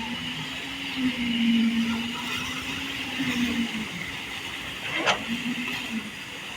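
A machine motor on a concrete pour runs with a steady, slightly wavering hum. There is one sharp click about five seconds in.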